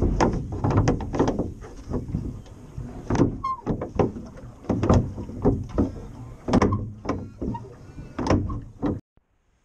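Wooden oars working in the rowlocks of a small MDF-built rowing dinghy: a busy run of knocks and clunks as the oars are pulled, with water splashing along the hull. It cuts off abruptly about nine seconds in.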